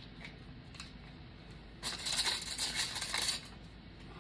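A scratchy rustle of craft supplies being handled, lasting about a second and a half and starting a little before halfway through.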